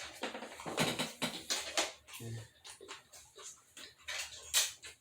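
Close-up chewing and lip-smacking of a bite of fried steak: a run of short wet clicks, busiest in the first two seconds, then slower and softer.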